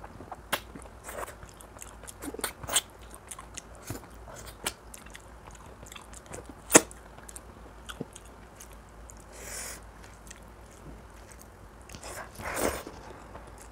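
Close-miked eating sounds of a person chewing mutton curry: irregular wet clicks and smacks of mouth and lips, the loudest about seven seconds in, with two longer hissing sounds near the middle and near the end.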